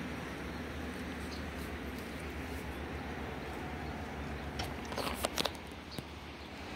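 Steady low hum of distant engines, with a short cluster of crackles and clicks about five seconds in.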